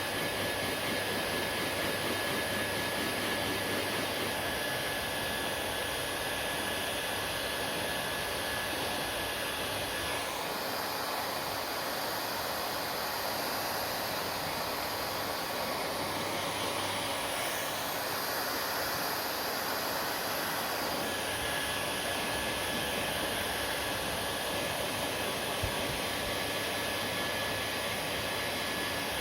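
Hair dryer running with a steady whooshing hiss and a thin high whine. The whine drops out and the hiss changes about ten seconds in, then comes back about twenty-one seconds in.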